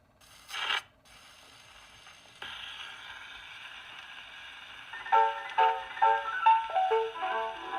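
Wind-up Victrola with an Emerson soundbox fitted: a short loud scrape as the needle is set down on the record about half a second in, then the hiss of the surface noise, which grows louder a couple of seconds in, and from about five seconds a two-piano duet starts playing through the acoustic horn. The soundbox is an off-brand part not made for this machine, yet it plays.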